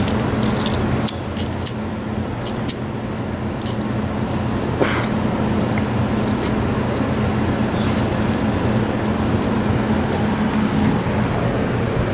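Wind buffeting the microphone over a steady wash of city traffic noise, with a low steady hum underneath and a few light clicks.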